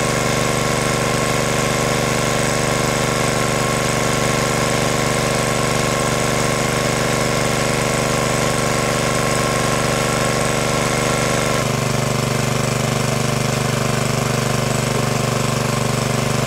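Motor-driven water pump running steadily at constant speed, sucking water out of a pond. Its tone changes abruptly about twelve seconds in.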